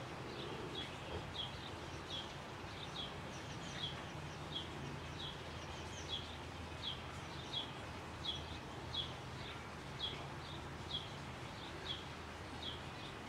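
A small bird calling over and over, a short high falling chirp about every three-quarters of a second, over a steady background hiss and low hum.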